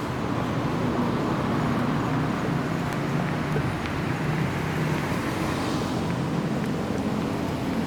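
Steady city street traffic: cars passing and engines running with a constant low hum.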